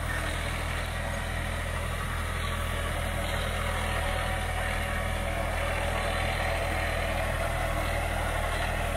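New Holland 3630 Special Edition tractor's diesel engine running steadily while it pulls a Jagatjit super seeder across the field.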